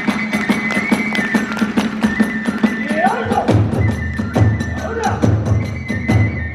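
Kagura hayashi accompaniment: a bamboo flute holds a high line over a fast, even run of percussion strokes. About three and a half seconds in, heavy low drum beats come in.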